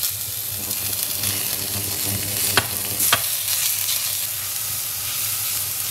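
Diced chicken breast sizzling as it goes into hot oil in a stainless steel pot with carrot, corn and shiitake, stirred with a silicone spatula. Two sharp clicks come about two and a half and three seconds in.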